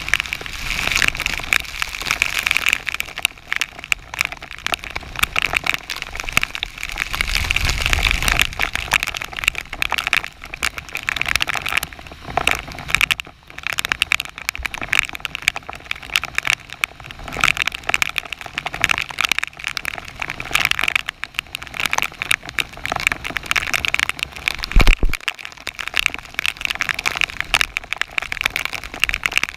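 Torrential rain pelting the river surface and the kayak deck, a dense, steady hiss of countless drop impacts. A low gusty rumble comes in about a quarter of the way through, and there is a brief low thump near the end.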